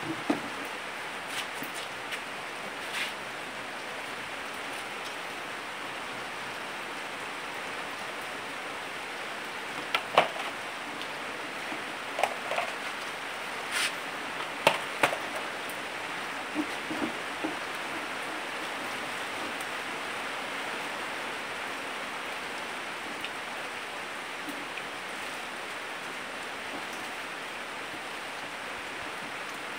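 A steady, even hiss with a few scattered light clicks and knocks, most of them bunched in the middle.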